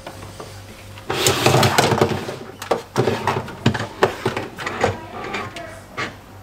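Ring-shaped Plaato Keg scale bases being handled and set down on the kegerator floor: a scraping rustle about a second in, then a run of sharp knocks and clatters as they are shuffled into place.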